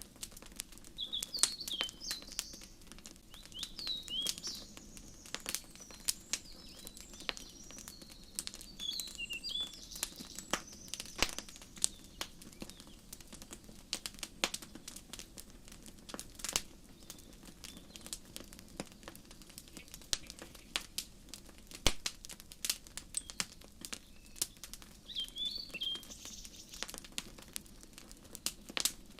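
Wood fire crackling with frequent sharp pops, over a steady low hiss. Small birds chirp in short high calls at times: near the start, around ten seconds in, and near the end.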